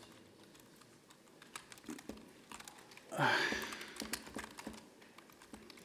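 Typing on a computer keyboard: scattered light key clicks while commands are entered. About three seconds in there is a short vocal sound with falling pitch.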